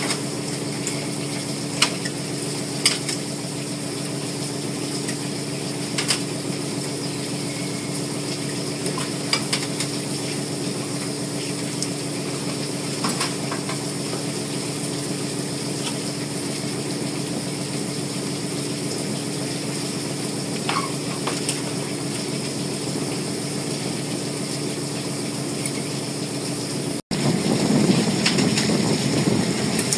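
Longline hauler and boat machinery running with a steady hum, with scattered sharp clicks and knocks as the line comes aboard. Near the end the sound changes abruptly to a louder, rougher noise.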